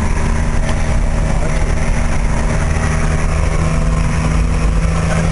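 Diesel engine of a Volkswagen 23-250E truck running while driving, a steady, even drone that holds one pitch.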